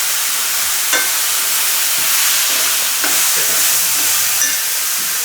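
Chopped red spinach stems sizzling as they fry in an Indalium pan, with a steady hiss and a spatula stirring, scraping and clicking against the pan a few times.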